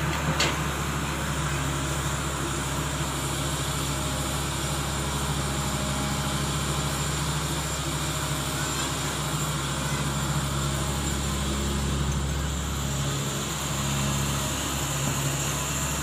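Tata Hitachi 200-class crawler excavator's diesel engine running steadily under load while it digs and swings, with a short knock about half a second in.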